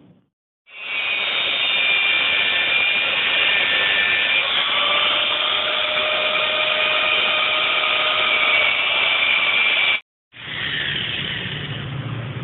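Angle grinder with a cutting disc cutting through a steel motorcycle front-fork tube: a loud, steady grinding noise with several thin ringing whines over it. It stops for a moment about ten seconds in, then starts again.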